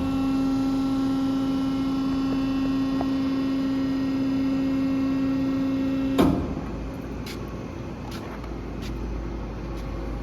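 50-ton Wabash/Carver hydraulic press opening: its hydraulic pump runs with a steady hum for about six seconds, then a sudden clunk as the tone stops. A lower, quieter hum with a few light clicks follows.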